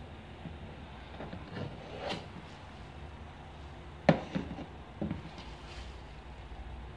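Putty knife working wall filler: a few short scrapes a second or two in, then a sharp knock about four seconds in followed by two lighter knocks.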